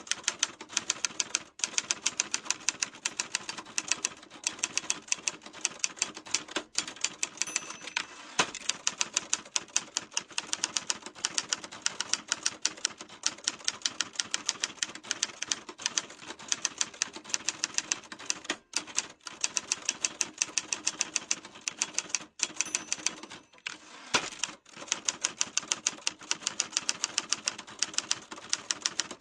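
Typewriter keys striking in a quick, even stream of sharp clacks, about five a second, with a few short breaks.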